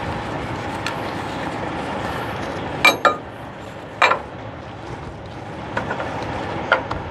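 Several sharp metallic clinks of tie-down hardware on a flatbed trailer: two close together about three seconds in, another a second later, and a few fainter ones. Under them runs a steady low rumble.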